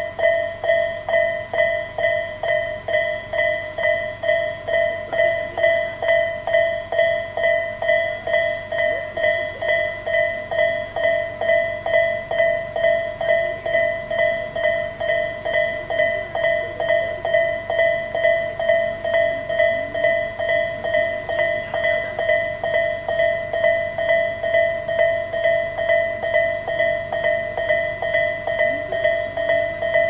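Electronic level-crossing warning bell sounding the Isesaki-type tone, a ringing ding repeated evenly about twice a second: the alarm that warns of an approaching train.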